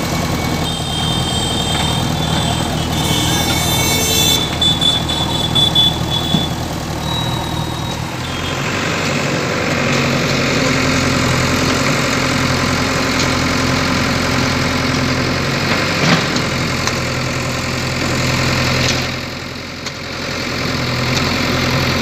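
Diesel engine of a JCB 3DX backhoe loader running steadily as it works, with a brief high whine in the first few seconds.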